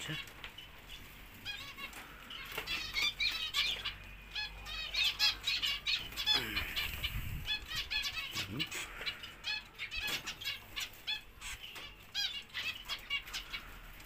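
Zebra finches calling in a cage, a dense stream of short high chirps, with wings fluttering as a nest basket is handled among them. A few lower, falling calls from another bird come in near the middle.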